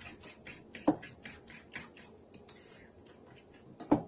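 Utensil stirring a sardine, egg and flour mixture in a ceramic bowl, scraping and clicking against the bowl several times a second, with a louder knock about a second in and another near the end.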